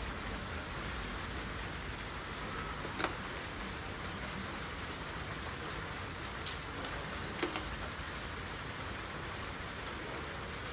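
A steady hiss like falling rain, with a few sharp crackles of plastic wrapping being handled, about three seconds in and twice more past the middle.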